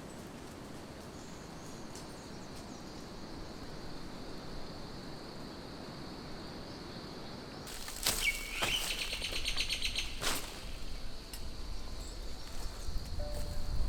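Wind blowing steadily through the forest, gusting and rumbling more in the second half, with a bird calling about eight seconds in: a short gliding note followed by a quick run of repeated high notes.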